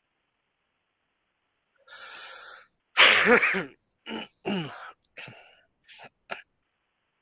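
A man sneezes loudly about three seconds in, after a breathy intake, then gives a second, weaker sneeze and a few shorter bursts of breath.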